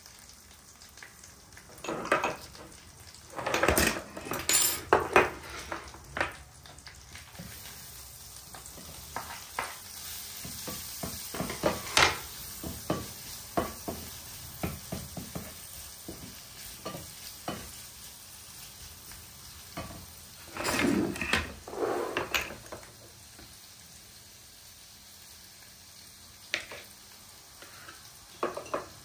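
Sliced green olives sizzling and frying in a pan of oil and tomato paste, stirred and scraped with a wooden spoon. A burst of clattering and louder sizzling comes a few seconds in as the olives go into the pan, with more clatter of the spoon about two-thirds of the way through.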